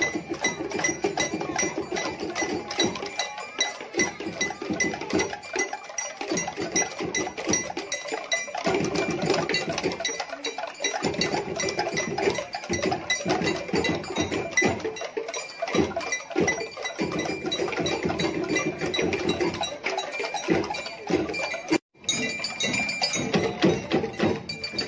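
Balinese okokan, the large wooden cattle bells worn and shaken by marchers, clattering together in a fast, dense rhythm, with the clinking of cengceng cymbals over it. The sound drops out for an instant near the end.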